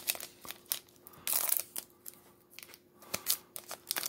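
Foil wrapper of a Magic: The Gathering Zendikar Rising draft booster pack crinkling and being torn open by hand, in irregular crackles with a longer rustle about a second and a half in.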